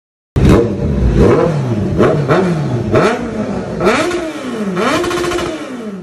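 Kawasaki Z900's inline-four engine, fitted with an aftermarket exhaust, revved in about half a dozen quick throttle blips, the pitch rising and falling each time, the last held briefly before dropping away. It is loud.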